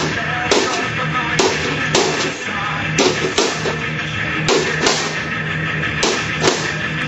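Heavy metal music: distorted guitar over a driving drum beat, without vocals.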